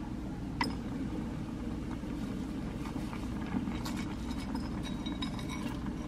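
Tteokbokki sauce simmering in a stainless saucepan over a gas burner, a steady low rumble. Light clicks and clinks of the spoon and plate against the pot come about half a second in and through the second half, as greens are added.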